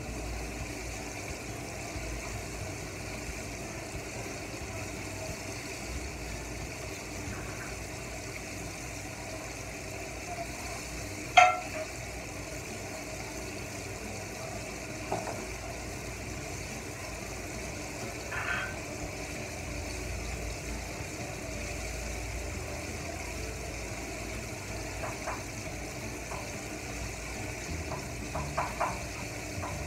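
Steady low hiss of cooking oil heating in a frying pan on an electric cooktop. There is one sharp click about eleven seconds in and a few faint ticks near the end.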